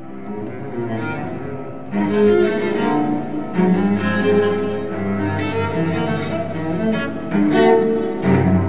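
Bowed cello in contemporary electroacoustic music. Several held notes sound at once and shift every second or so, with sharper attacks about two seconds in and near the end.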